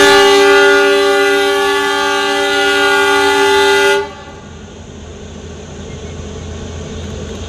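Narrow-gauge diesel locomotive's horn sounding one long blast of about four seconds, several tones at once, cutting off sharply. A quieter low steady rumble follows.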